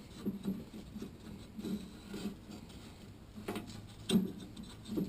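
Rubber V-belt being worked by hand around the pulleys of a lawn tractor's mower deck: irregular soft rubbing and scraping, with a couple of sharper knocks against the metal near the end.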